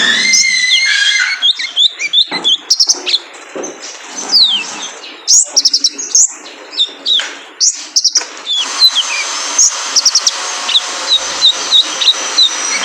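Male kolibri ninja (purple-throated sunbird) singing: a rapid, high-pitched twittering of short notes, many sweeping quickly downward, mixed with sharp clicking notes.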